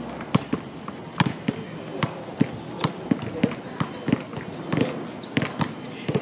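A basketball being dribbled on an asphalt court: a string of sharp, uneven bounces, about two or three a second.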